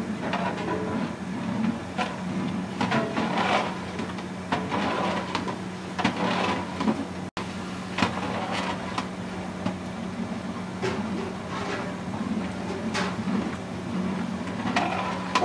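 A long metal ladle stirs a large aluminium cooking pot of broth, with irregular scraping and clinking against the pot, over a steady low hum.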